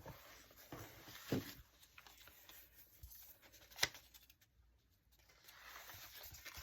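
Faint handling of paper and a journal: soft rustles and light taps, with one sharp click about four seconds in.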